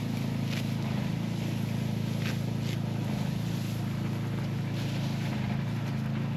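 Engine of a rice harvesting machine running steadily at a constant speed, a low even hum.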